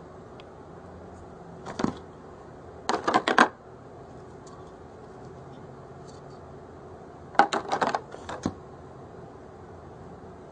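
Handling noise: three short clusters of rapid clicks and rattles of small hard objects, like plastic parts or packaging being handled, over a steady low hum.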